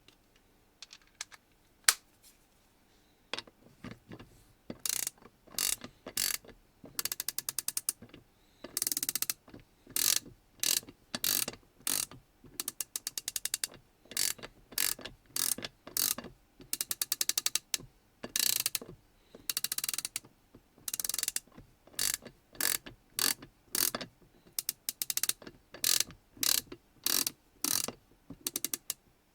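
USAG 237A1/2X half-inch-drive, 72-tooth round-head ratchet handle being swung back and forth, its pawl clicking over the fine teeth in quick runs of closely spaced clicks. A few single clicks come first, then repeated strokes, some faster and longer than others.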